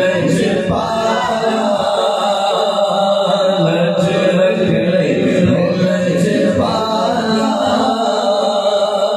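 A male voice sings a Punjabi naat unaccompanied, drawing out long melodic phrases over a steady low vocal hum.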